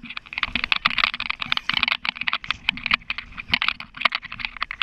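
Rapid, irregular clicking and crackling from a body-worn GoPro's waterproof housing being jostled and rubbed as the wearer walks, many clicks a second.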